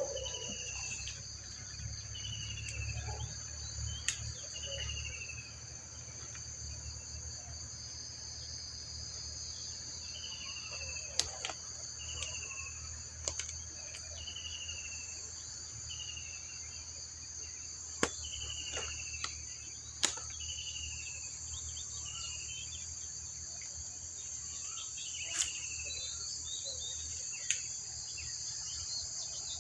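Steady high-pitched insect chorus of crickets or similar, with a short falling chirp repeating every second or two and a few sharp clicks scattered through.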